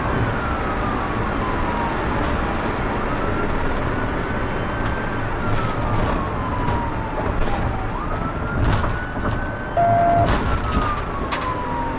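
Police car siren on a slow wail, each cycle climbing quickly, holding, then gliding down, repeating about every four seconds, heard from inside the cruiser over engine and road noise. A short steady tone sounds about ten seconds in, with a few sharp clicks.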